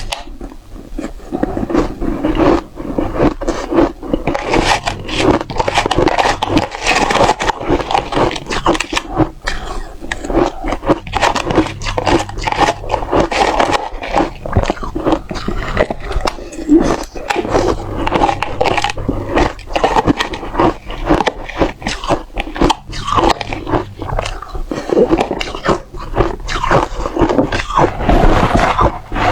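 Frozen matcha ice cubes with a dry, frosty texture being bitten and crunched close up: continuous hard bites and crunching, with chewing between them.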